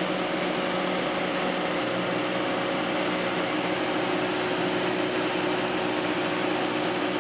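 An engine running steadily with a constant hum, with no change in speed.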